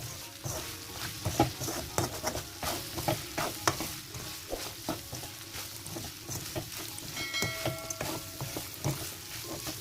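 Spoon stirring and scraping chicken in a thachchi (wok) as it fries and sizzles, with frequent knocks of the spoon against the pan. The oil is nearly cooked off, and the constant stirring keeps the chili pieces from sticking to the bottom of the pan.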